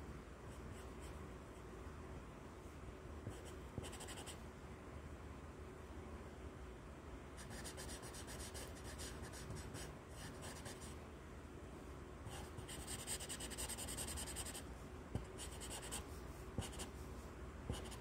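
Sharpie marker tip scratching on lined paper in quick back-and-forth strokes as it fills in a small dark area. It comes in several stretches of scratchy hiss, the longest of them a few seconds, with short pauses between.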